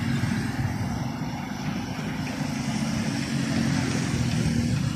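Water jetting from a sprinkler nozzle under pump pressure, a steady spray hiss, over a steady low hum.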